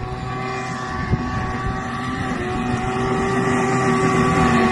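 Snowmobile engine held at steady high revs as the sled skims across open water, growing louder as it approaches.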